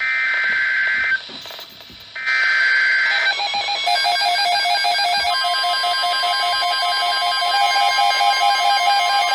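An Emergency Alert System SAME header: two harsh digital data bursts about a second long each, a second apart. These are followed by a busy mix of warbling tones and, from about five seconds in, the steady NOAA Weather Radio 1050 Hz warning alarm tone, which signals that a warning follows.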